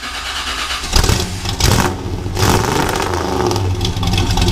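Engine revving sound effect: an engine starts and revs, with a sharp hit about a second in and a rising pitch through the middle.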